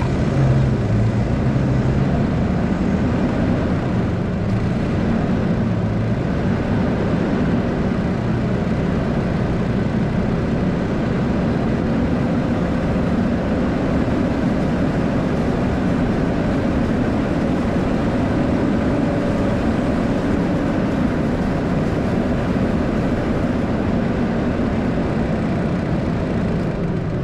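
A Nissan Frontier pickup's engine running steadily as the truck crawls through deep snow, a continuous low-pitched drone with no breaks.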